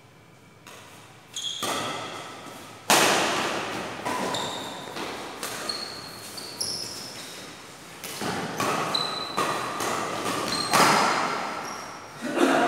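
Badminton rally: rackets hitting a shuttlecock about eight or nine times, sharp smacks that echo in a large hall, the hardest about three seconds in and near the end. Short high squeaks come between the hits, from shoes on the court floor.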